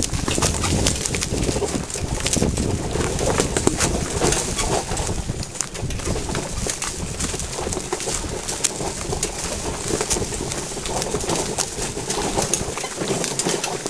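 iBex saddlechariot, a pony-drawn wheelchair carriage, rolling over a steep, rutted track: a steady rumble with frequent clicks and knocks from the wheels, hooves and stones. A cooing call runs over it.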